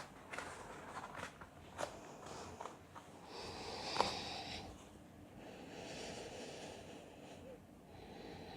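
Quiet breathing: two long, soft exhales a few seconds apart. A few light taps and rustles from movement on the yoga mat come mostly in the first half, the sharpest one about four seconds in.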